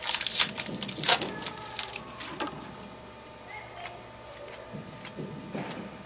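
The wrapper of a pack of baseball cards crinkles and tears as it is ripped open, with a sharp rip about a second in. Fainter clicks of the cards being handled follow.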